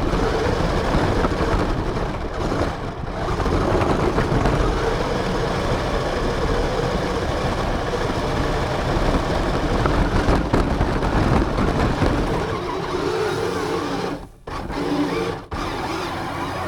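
RC car driving, heard from a camera mounted on it: a steady motor whir mixed with tyre and wind noise. The sound cuts out sharply twice near the end.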